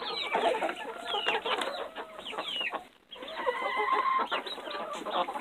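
A crowded flock of laying hens clucking while they feed, many short overlapping calls with a couple of longer, drawn-out calls a little after the middle. The sound cuts out for an instant about three seconds in.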